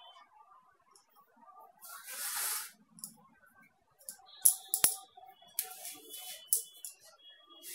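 Wooden rolling pin rolling out a palak puri on an oiled flat surface: clicking and knocking of the pin against the surface, the sharpest knock about five seconds in, with faint squeaks. A short hiss about two seconds in.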